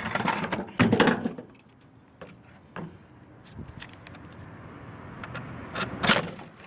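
Copper tubing on an air-conditioner radiator being cut and handled: a few sharp metal clanks and clicks, loudest in the first second and a half and again about six seconds in.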